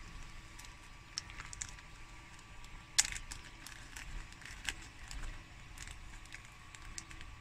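Small plastic packet of static grass being opened and worked between the fingers: scattered crinkles and small clicks, with one sharper click about three seconds in.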